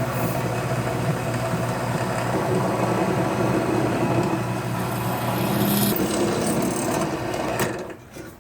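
Electric drill motor running steadily with a hum and grinding as the bit bores into a metal dome strut, stopping near the end.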